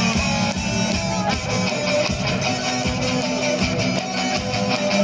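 Rock music: strummed guitar over drums with a steady beat.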